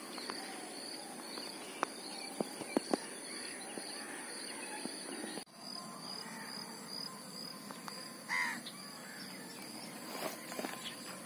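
Outdoor lakeshore ambience: a steady drone of insects with a high chirp repeating about once a second, a few sharp clicks in the first three seconds, and a single crow caw about eight seconds in.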